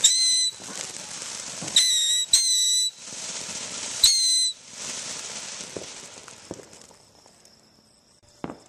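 Small whistling fireworks going off: four short, shrill whistles, each about half a second long and starting abruptly, the middle two close together. Hissing fades away afterwards, and there is a single sharp pop near the end.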